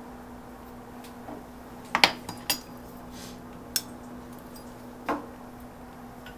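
Metal kitchen utensils clinking against a stainless steel sink and dishes: a quick cluster of sharp clinks about two seconds in, then single clinks spaced a second or so apart. A steady low hum runs underneath.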